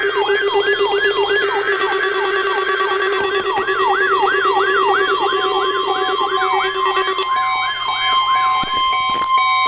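Electronic alarm siren sweeping down in pitch over and over, about two to three sweeps a second, over several steady alert tones. The low steady tone drops out about seven seconds in, leaving a steady tone near 1 kHz under the sweeps, with a few clicks near the end.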